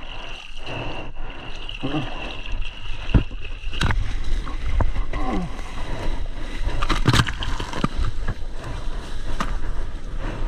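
Sea water sloshing and splashing against a bodyboard and the camera mounted on it, with many sharp splashes and slaps of water from about four seconds in.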